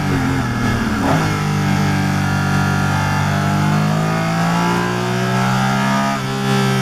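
Porsche 718 Cayman GT4 RS Clubsport's naturally aspirated flat-six heard from inside the cockpit. It brakes and downshifts from sixth to fourth in the first second or so, then revs up steadily in fourth to about 8,200 rpm, and the revs fall sharply near the end as it lifts off.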